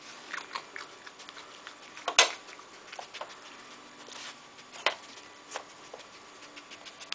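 Cups and pieces of a dog treat puzzle toy clicking and clattering as a fox noses and knocks them over while searching for treats. There are scattered light ticks, with a louder knock about two seconds in and another near five seconds.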